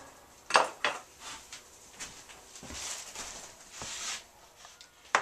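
Two light knocks about half a second in, then faint scraping and light metallic clatter of a hammer and nails being handled on a wooden workbench, after the nailing of wooden hive frames has stopped.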